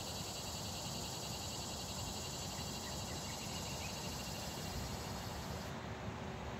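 Outdoor ambience of insects chirping in a fast, even pulse, over a steady low rumble.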